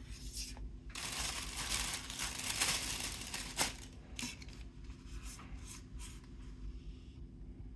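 Plastic snack wrapper being torn open and crinkled: a long rustling tear lasting a few seconds with a sharp snap near its end, then several short crinkles.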